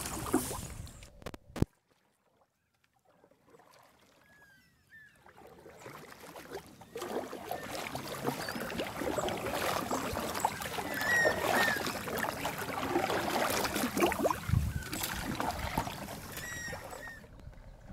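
Wooden canoe paddle strokes in calm lake water: splashing and dripping that stop with a sharp click about a second and a half in, leaving a couple of seconds of near silence. The paddling sounds then build up again, with birds chirping briefly now and then.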